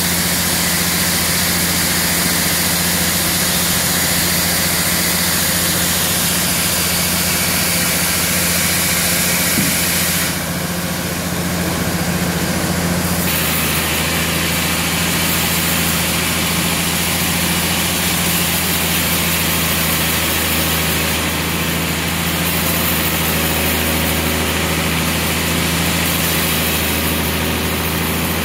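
Sawmill band saw running steadily with a constant low hum and a high hiss; the hiss drops away for a few seconds about ten seconds in, then returns.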